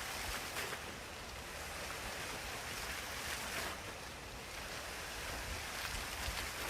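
A recording of rushing water playing from computer speakers and picked up by a microphone: a steady hiss that swells and eases every second or two.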